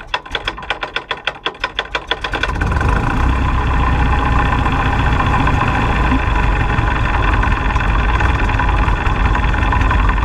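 Taylorcraft BC-12D's air-cooled flat-four engine catching just after a hand-prop start. It fires in separate pops, about six a second and quickening, for the first two and a half seconds, then settles into a steady idle.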